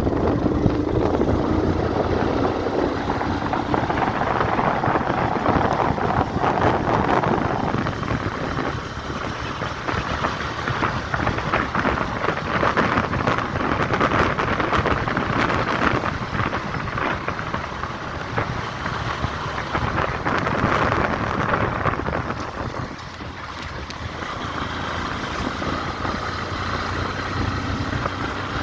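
A road vehicle travelling, with engine and road noise that swells and eases, and wind buffeting the microphone.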